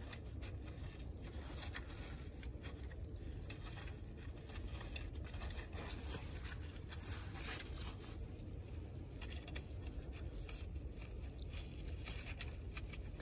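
Faint clicks and scrapes of metal parts being handled as a car engine's tensioner mount is fitted by hand, with one sharper click about two seconds in, over a steady low rumble.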